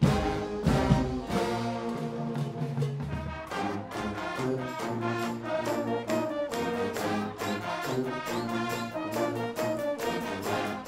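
Guggenmusik brass band playing: loud brass chords over bass drums and a rhythmic percussion rack, with a heavy drum hit right at the start.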